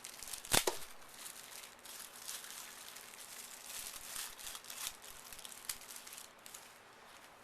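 Packaging rustling and crinkling as a sealed knife box is opened by hand, with one sharp snap about half a second in.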